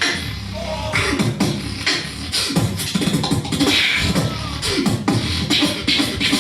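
Solo beatboxing: deep bass notes that slide down in pitch, cut with sharp clicks and snare-like hits in a quick rhythm.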